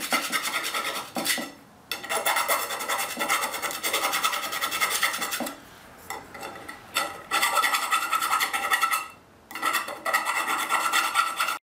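Small hand file scraping inside the cut end of a half-inch copper pipe in quick back-and-forth strokes, deburring the edge. The filing comes in runs of a few seconds with short pauses between them, and it cuts off abruptly near the end.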